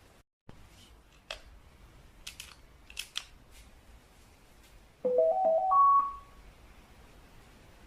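Samsung CW-21Z503N CRT television's power-on jingle: a short rising run of four or five electronic notes, about a second long, after a few faint clicks.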